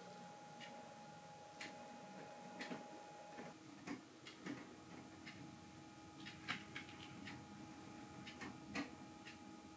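Quiet room with a faint steady hum and soft, sharp clicks. The clicks come about once a second at first, then fall into an irregular pattern after a few seconds.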